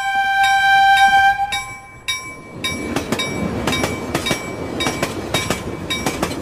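A train horn sounds one steady note for about a second and a half. A chime rings once, and then a train runs past with its wheels clattering irregularly over the rail joints under a faint ringing tone.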